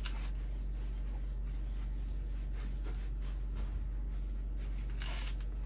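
Microfiber cloth wiping a glass PC side panel, faint rubbing strokes over a steady low electrical hum, with one brief louder swish near the end.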